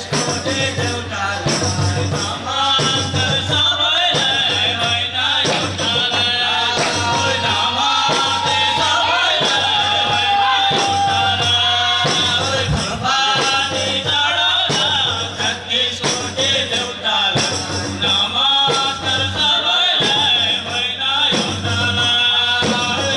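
Live kauda, a Magar folk song: singing over a steady beat of hand-played frame drums.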